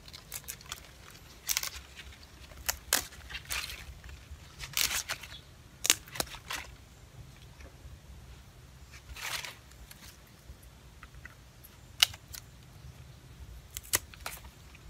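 Hands pulling apart a soil-caked gerbera clump: scattered rustles and soft tearing of roots with crumbling soil. Near the end there are a few sharp snips from small pruning shears cutting the roots.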